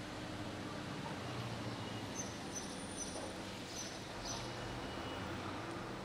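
Street ambience: a steady low hum of traffic, with short, high bird chirps repeating about once a second.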